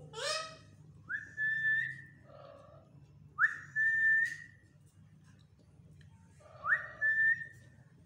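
Three whistles, two to three seconds apart, each sliding quickly up and holding a steady note for under a second.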